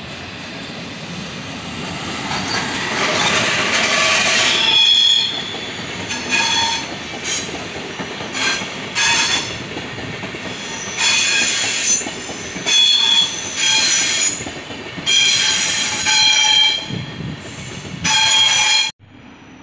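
Passenger train hauled by a red SBB electric locomotive rolling past on curved track, growing louder over the first few seconds. Then the wheels squeal in a series of high-pitched bursts as the coaches go through the curve. The sound cuts off suddenly near the end.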